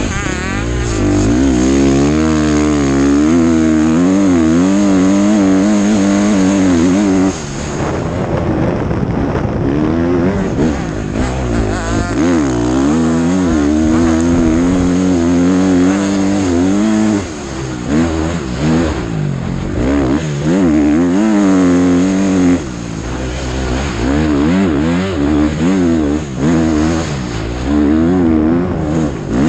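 KTM 450 motocross bike's four-stroke single-cylinder engine run hard by its rider on sand, its pitch rising and falling constantly with the throttle. The throttle is briefly rolled off about seven seconds in and again around 17 and 22 seconds.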